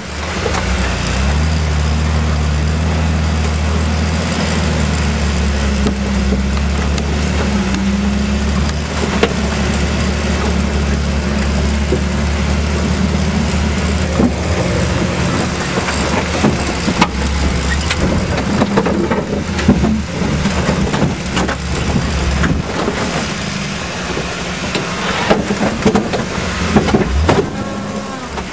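Ford Bronco II engine running under load while the 4x4 crawls along a rough off-road trail. The engine note holds steady for the first half, then breaks up, with repeated knocks and rattles from the vehicle working over uneven ground in the second half.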